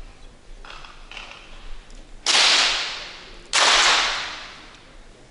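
Two shots from .22 rimfire free pistols, about a second and a quarter apart, each a sharp crack that rings out in a long echo off the range hall. They are shots fired for the final shot of a 50 m pistol final.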